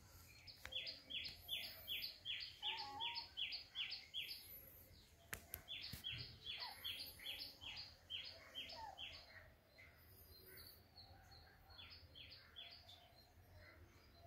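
A bird calling in rapid runs of sharp, high chirps, about four a second: two long runs and a short one near the end.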